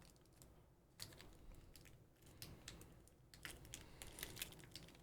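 Faint, scattered light plastic clicks and soft rustling as small keyboard accessories and their packaging are handled.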